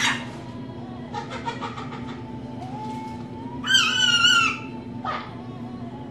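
Pet lorikeet vocalising: faint chatter about a second in, then a loud, harsh, high-pitched call lasting nearly a second about four seconds in, and a shorter call about a second later.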